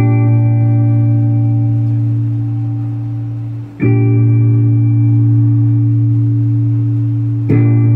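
Electric guitar playing long, sustained chords: one struck at the start and left ringing, a second about four seconds in, and a third near the end.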